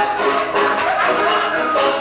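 Cumbia dance music playing loud over a DJ's sound system, with steady percussion under a moving melody.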